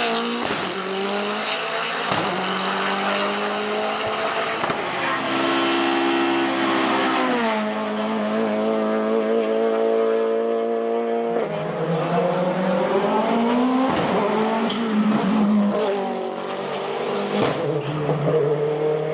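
Mercedes-AMG race car's engine at full throttle on a hillclimb run, climbing in pitch and then dropping abruptly at several gear changes.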